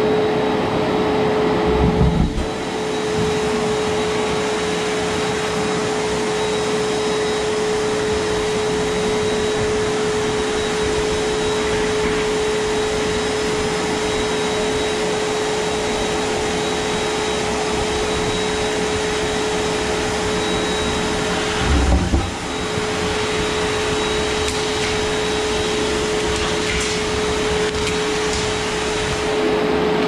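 Vacuum cleaner running steadily under a desk, a constant motor whine over its airflow noise, with two brief low thumps, one about two seconds in and one about two-thirds of the way through.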